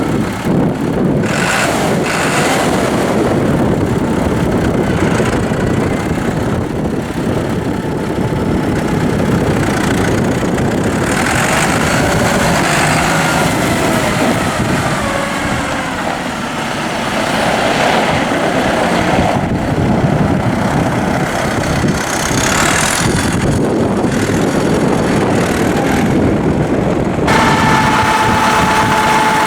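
1996 New Holland 7740's four-cylinder turbocharged diesel engine running steadily at idle. Near the end a steady high whine joins the engine sound.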